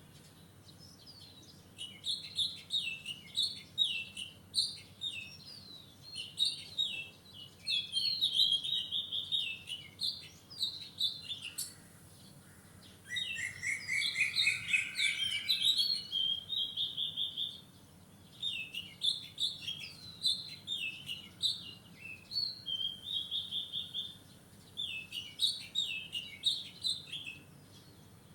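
Wild songbirds singing: quick bouts of high chirped and whistled notes, each a few seconds long, separated by short pauses. About halfway through, a lower trill from a second bird overlaps the song.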